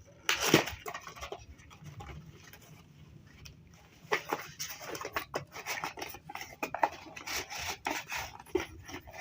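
Packaging being handled as a tripod is unboxed: a sharp rustle about half a second in, then irregular scraping and rustling from about four seconds on.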